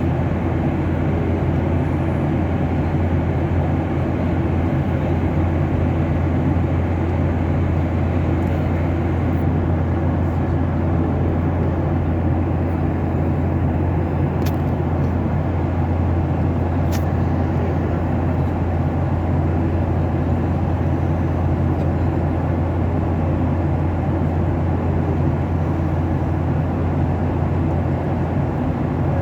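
Aeroplane in flight, heard from inside the cabin: a steady deep hum with an even rushing noise that holds at one level throughout.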